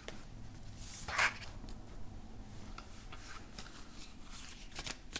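Tarot cards being handled and laid out on a table: faint rustles and light taps, with a slightly louder swish about a second in.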